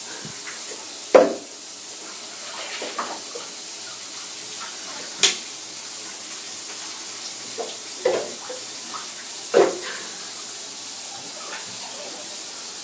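Shower water running steadily into a full bathtub, with four short sharp knocks as a man shifts about in the tub.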